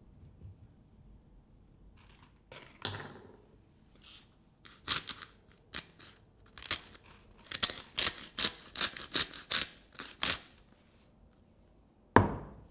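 A pinch of sea salt rubbed between fingers and sprinkled into a glass mixing bowl of flours: a quick run of short, crisp crackles in the middle, with a soft knock a few seconds in and a sharper, louder knock near the end.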